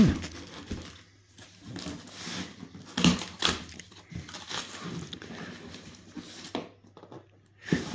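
Cardboard scraping and rustling as a boxed product is slid out of a torn cardboard shipping carton, with a sharp knock about three seconds in.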